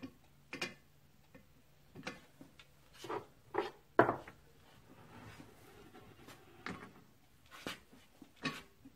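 Scattered clicks and knocks of hands and metal parts working on a cast-iron engine flywheel as it is turned and checked by hand, the loudest knock about four seconds in.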